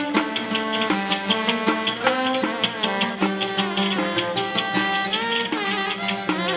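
Instrumental passage of an Arabic song: a melody instrument playing held, shifting notes over a steady hand-drum beat, with no singing.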